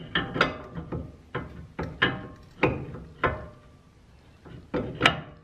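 A Toyota Mark II's brake caliper being worked off the disc rotor by hand once its two bolts are out: a series of irregular metal clunks and knocks, about a dozen, some with a short ring after them.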